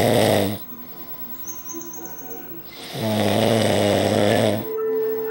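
A man snoring: one long snore trails off about half a second in, and after a quiet pause a second long snore comes about three seconds in. Near the end a steady whistling tone starts.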